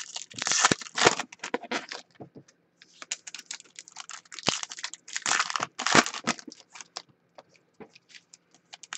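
Foil trading-card pack wrapper crinkling and tearing as a pack is opened, with cards being shuffled and handled. The noise comes in several scratchy bursts and thins out near the end.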